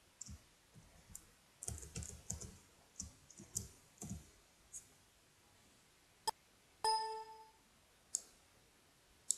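Computer keyboard keys being pressed: a quick run of clacks in the first four seconds, a few more near the end, and a single sharp click about six seconds in, followed by a short computer alert chime.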